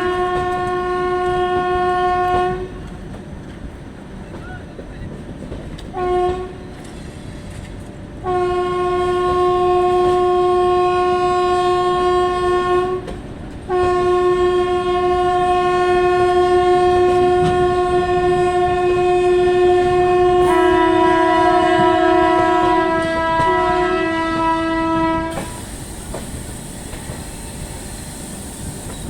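Indian Railways locomotive horn sounding in blasts: one ending about two seconds in, a short toot, then two long blasts, with a second, slightly lower horn joining the last one before both stop. Underneath runs the steady rumble and clickety-clack of a passing train.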